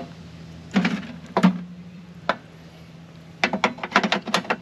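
Knocks and clatter of things being handled on a wooden picnic table and at a portable pizza oven: a few single knocks, then a quick run of clicks and knocks near the end.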